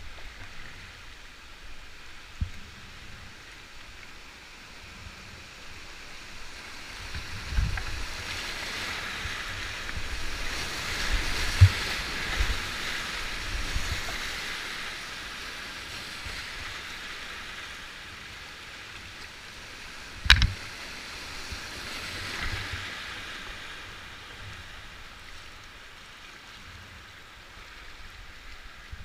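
Whitewater rushing around a kayak as it runs a river rapid, building to its loudest midway and then easing off. Several dull knocks, with one sharp knock about twenty seconds in, the loudest single sound.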